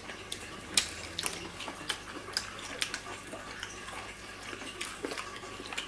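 Scattered small clicks, crackles and crunches of people eating fried chicken by hand, with faint handling noise between them.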